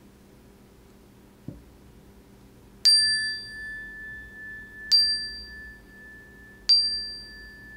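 Single metal chime bar struck three times with a mallet, about two seconds apart. Each strike rings on at the same clear pitch, with higher overtones that die away first. A soft knock comes about a second and a half in.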